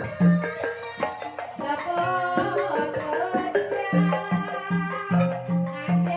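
Banyumasan gending music in the ebeg style: a traditional Javanese ensemble playing melodic lines over a regular low drum beat of about two and a half strokes a second.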